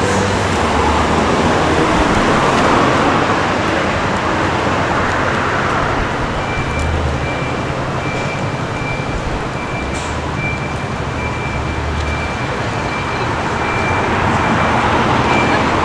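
City street traffic: vehicles passing in a steady wash of road noise that swells and eases. A thin, steady high tone comes in about six seconds in and carries on.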